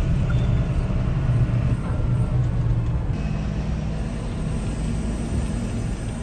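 Tractor engine running steadily at road speed, a low drone heard from inside the cab, easing a little about halfway through.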